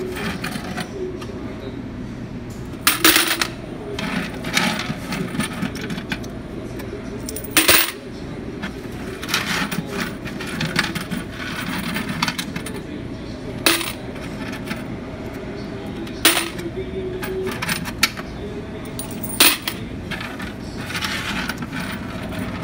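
Coins clinking and jingling as they are handled and poured out of a gumball and candy vending machine's coin box, with several sharp, loud metallic clanks.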